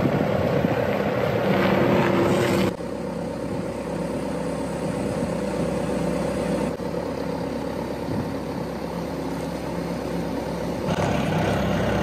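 Bobcat skid-steer loader's engine running steadily. It is louder at first, drops abruptly a little under three seconds in, and comes up again near the end.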